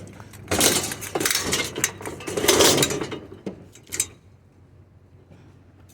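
Metal scrap clanking and scraping as it is shifted and pushed into place in a load, with sharp clinks, busiest through the first three and a half seconds, then quieter.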